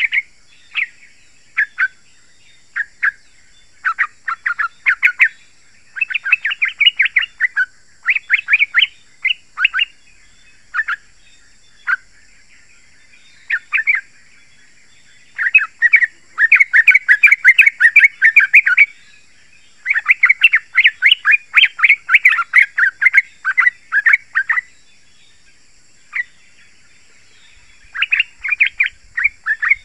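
Yellow-vented bulbul (trucukan) singing in short bursts of quick notes. In the second half the bursts run into two long rapid strings, then stop for a few seconds, apart from a single note, before the bird starts again near the end.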